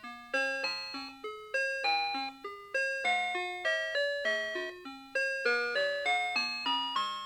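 Citizen 4RM753 Ghibli melody alarm clock playing one of its Ghibli tunes as its alarm, in clean chime-like notes that strike and fade, several a second, with a lower accompaniment under the melody.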